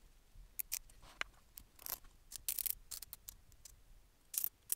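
Irregular light clicks and short scrapes of small parts being handled and fitted by hand while assembling a diode laser engraver kit's frame and cabling.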